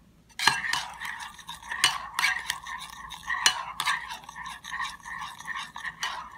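Metal spoon stirring a thick mayonnaise dressing in a mixing bowl, scraping steadily against the bowl with a few sharp clinks. It starts about half a second in.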